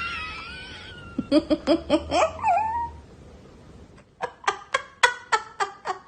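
A cat making short, repeated meowing calls. A wavering call comes first, then a quick run of short calls about a second in, a falling call, and a run of about eight evenly spaced calls near the end.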